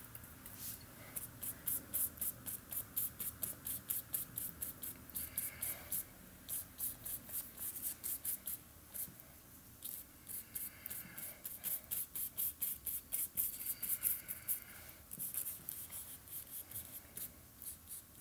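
Paintbrush bristles stroking and dabbing paint onto a textured painting board: a quick run of short scratchy strokes, several a second, with brief pauses.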